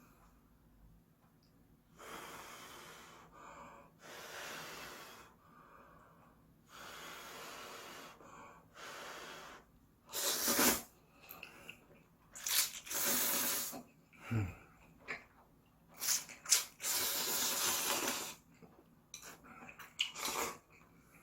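Someone eating ramen and slurping the noodles: a string of breathy, airy hisses a second or two long, louder and sharper from about halfway through.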